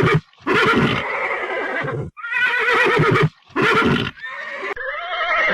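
Horse whinnying: several neighs in a row with a shaky, quavering pitch, the last one softer.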